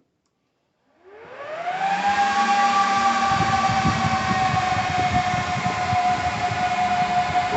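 HP DL160 G6 server's cooling fans spinning up at power-on. About a second in, a rising whine climbs for about a second and then holds as a loud, steady fan whine with a rush of air. The fans run at full speed until the server recalibrates, which is normal after a processor change.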